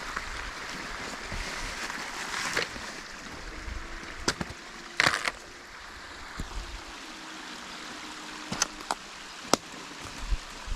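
Steady rush of a mountain creek and waterfall, with a few sharp knocks and clicks scattered through, the loudest about five seconds in.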